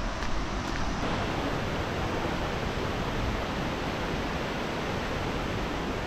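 Shallow stream rushing over rocks, a steady, even hiss of running water.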